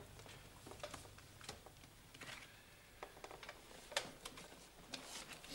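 Playing cards being laid down one after another on a table as a player shows his hand: a quick, uneven run of light slaps and clicks, the sharpest about four seconds in.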